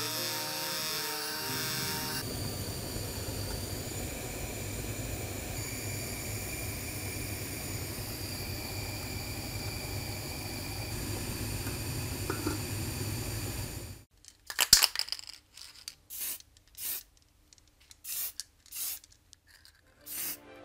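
Small rotary tool with a wire brush wheel running steadily against a copper tab, a motor hum with a faint high whine. About fourteen seconds in it stops, and a series of short, sharp bursts with gaps between them follows.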